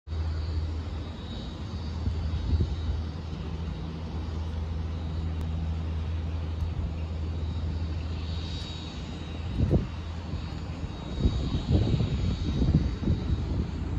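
Distant twin-turbofan jet airliner, an Embraer 175 with GE CF34-8E engines, on approach: a steady low drone with a faint high whine. From about ten seconds in, gusty wind buffets the microphone.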